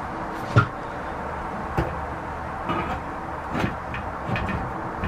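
Scattered knocks and clunks as a motorcycle swing arm is handled and offered up into the frame, the sharpest about half a second in and another about three and a half seconds in, over a steady background hiss.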